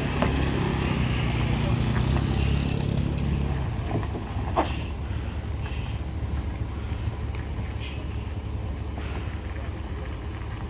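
Diesel engine of a large coach bus running as it crawls over a rough dirt road, mixed with a motor scooter passing close; the engine sound is strongest for the first three seconds or so, then eases to a steady low rumble. A sharp knock about four and a half seconds in.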